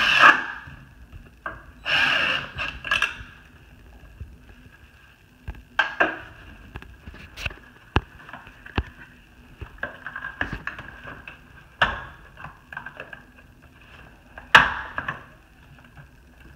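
Cordless drill driving a bracket screw into the window frame, stopping just after the start, then a second short burst about two seconds in. After that a scattering of clicks and knocks as the blind's headrail is fitted up into its mounting brackets, with one louder snap near the end.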